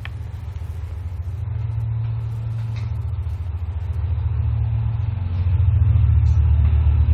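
Recorded aircraft engine sound played back through a small loudspeaker: a click, then a low engine rumble that grows steadily louder, like an approaching plane.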